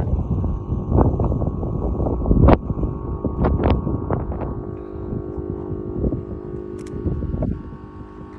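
Strong gusty wind buffeting the microphone, with sharp blasts in the first few seconds that ease off toward the end, over a steady low hum.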